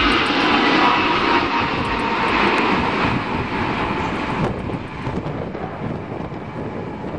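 Ilyushin Il-76 four-engine jet transport landing: loud jet engine noise with a faint whine slowly falling in pitch. The noise thins and fades from about four and a half seconds in as the aircraft touches down and rolls out.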